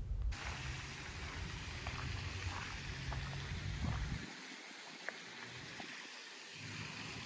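Wind rumbling on the microphone over an outdoor hiss, easing off about four seconds in, with a few faint short clicks.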